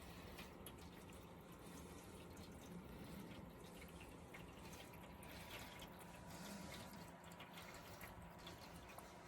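Pet water fountain running faintly: water trickling and dripping with scattered small ticks, over a steady low hum from its pump.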